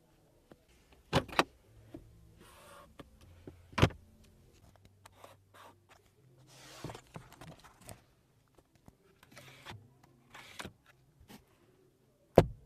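Hands handling a Lexus ES300h's interior: a few sharp taps and knocks on the perforated leather seat and soft rustling against the fabric headliner. A single loud click comes near the end, as the sun visor is moved.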